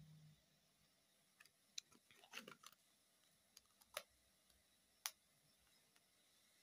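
A handful of faint, sharp plastic clicks and taps, with a short cluster about two seconds in, from handling a plastic margarine tub and taking off its lid.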